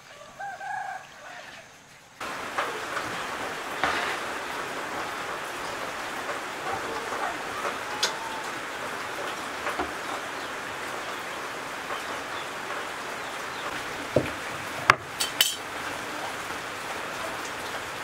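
Steady hiss of rain, starting suddenly about two seconds in. A chicken clucks briefly at the start, and a few sharp knocks come near the end.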